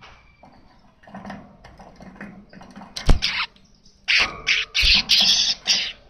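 Caged male weaver bird (manyar) singing: soft chatter building to a sharp click about three seconds in, then a run of loud, harsh, hissing song phrases in quick bursts over the last two seconds.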